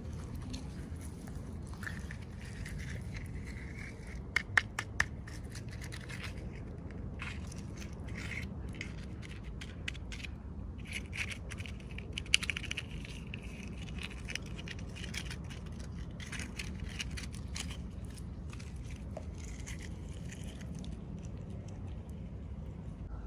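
Hands opening plastic toy packaging: crinkling and crackling plastic, with a few sharp clicks about four and a half seconds in and a cluster of crackles around twelve seconds, over a steady low hum.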